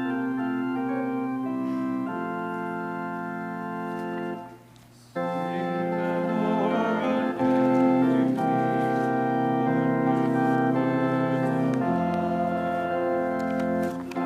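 Church organ playing sustained chords. It breaks off briefly about four and a half seconds in, then comes back fuller and louder.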